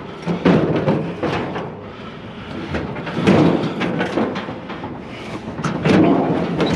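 Metal clanks and rattling as a grill is set down among scrap metal on a trailer, over a steady low hum.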